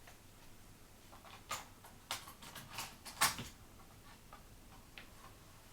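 A few light, irregular clicks and knocks, the loudest about three seconds in, from handling the Amiga 500 and loading a floppy disk into its drive to boot a game.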